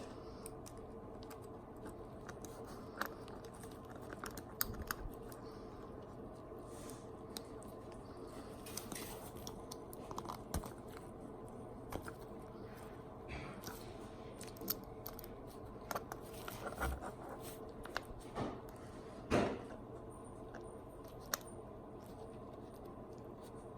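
Small 3D-printed PLA parts of a micro crawler being handled and taken apart: scattered light clicks and taps, with a sharper knock about 19 seconds in, over a steady low hum.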